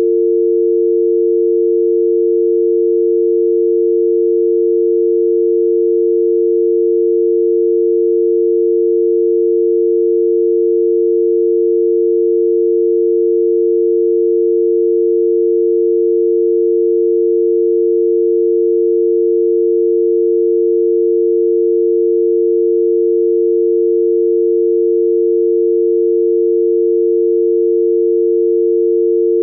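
UK telephone dial tone: two steady pure tones, 350 and 450 Hz, sounding together without a break. It signals that the exchange is ready for a number to be dialled.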